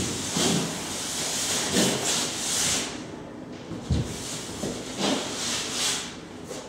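A paintbrush swept in long arcs across a wall, making rough swishing scrapes, about five in a row, with a short low thump about four seconds in.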